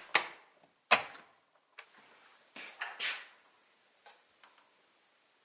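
Door handle and latch clicking sharply twice, about a second apart, followed by a few fainter knocks and rustles.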